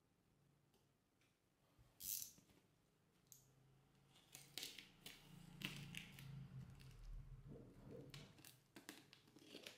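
Packing tape being cut with a box cutter and peeled off a plastic-wrapped parcel: a short scrape about two seconds in, then a run of irregular crackling and tearing.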